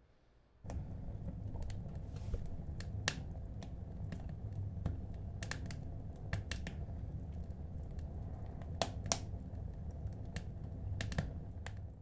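A steady low hum with irregular sharp crackling clicks, starting suddenly about a second in and cutting off at the end.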